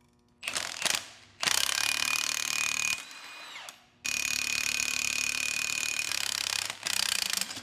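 Cordless impact wrench hammering on the forcing screw of a bearing puller, straining to pull a stuck tailstock cap off its partly drilled taper pins. It comes in bursts: two short ones at first, then a long run. About 3 seconds in it eases off with a falling whine, then comes a long run and a last short burst.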